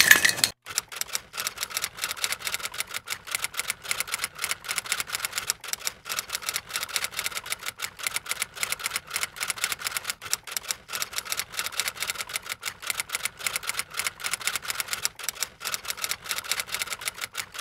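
Typewriter sound effect: a rapid, uneven run of keystroke clicks over a faint steady tone.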